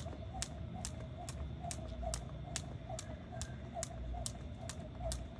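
Jump rope slapping the pavement in a steady rhythm, a little more than twice a second, with a continuous low warbling sound behind it.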